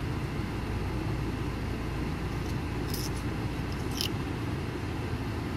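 Steady low hum inside a car's cabin, the car running. Two light clicks about three and four seconds in, quarters touching in the hand.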